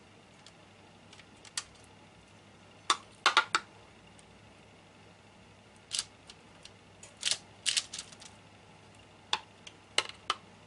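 A metal teaspoon clinking and tapping against a glass of water as it is dipped and wetted, in short clusters of sharp clicks.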